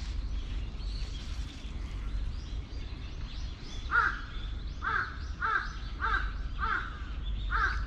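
A crow cawing: six short caws in a row, starting about halfway through, a little under two a second.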